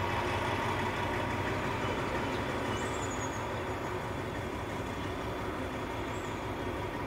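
Diesel locomotive engine running steadily, an even rumble that eases off slightly toward the end.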